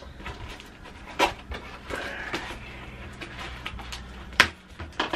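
Cardboard and plastic figure packaging rustling and scraping as the pieces of the figure are pulled out of the box, with a knock about a second in and a sharp click near the end.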